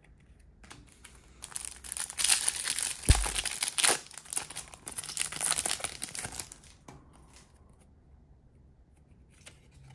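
Foil wrapper of a 2022 Bowman University Chrome trading-card pack being torn open and crinkled for about five seconds, with one dull thump about three seconds in.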